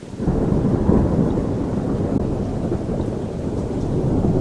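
Thunder: a long, deep rolling rumble that swells in within the first moment and stays loud and steady, with no single sharp crack.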